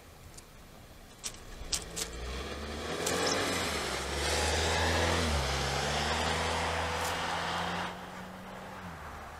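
A motor vehicle passing: engine hum and road noise swell from about three seconds in and drop away near the end, the engine note dipping and then rising again around the middle. A few sharp clicks come about a second in.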